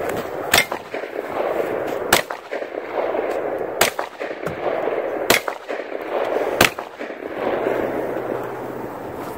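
Gunshots from nearby shooting: five sharp single reports about a second and a half apart, over a steady background rush.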